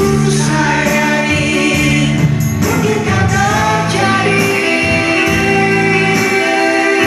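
A woman and a man singing a nostalgic Indonesian pop song as a duet through microphones, with instrumental accompaniment.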